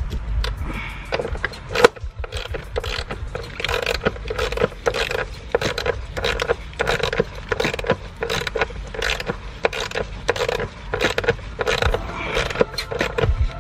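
Hand ratchet wrench clicking in quick runs as a bolt at the car battery is turned by hand, with some metal scraping.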